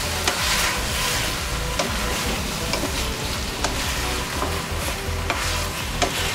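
Marinated chicken pieces sizzling in oil in a wide pan while a spatula stirs them, with scattered scrapes and knocks of the spatula against the pan. The chicken is cooking in its own juices, which are just starting to come out.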